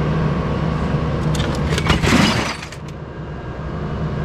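A vehicle engine running with a steady low hum. About two seconds in, a loud rushing crash falls in pitch and fades within about half a second.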